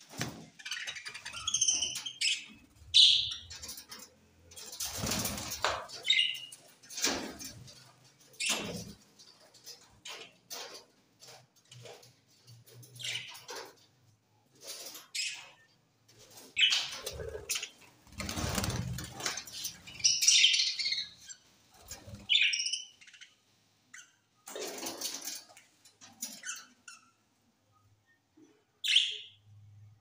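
A flock of budgerigars chirping in short, scattered calls, with wing flaps as birds fly between perches.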